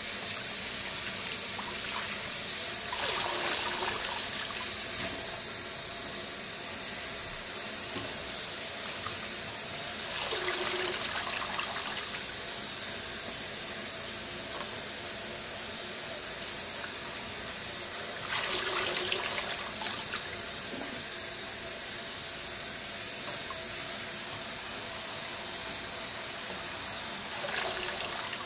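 Kitchen faucet running steadily into a water-filled stainless-steel sink while leafy greens are swished and rinsed by hand, with a louder swell about every eight seconds.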